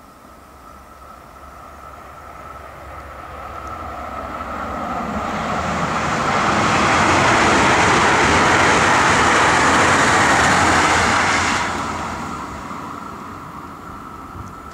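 Five-car Siemens Desiro electric multiple unit passing. Its rumble and rail hiss build over several seconds, stay loud while the cars go by, drop off sharply as the train clears, then fade away.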